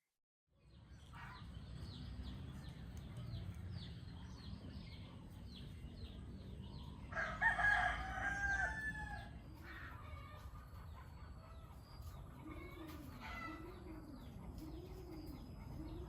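A rooster crows once, a loud call of about two seconds, some seven seconds in. Small birds chirp repeatedly around it over a steady low rumble.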